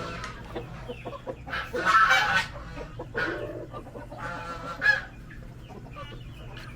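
Barred Plymouth Rock chickens clucking, with loud squawking calls about two seconds in and again near five seconds.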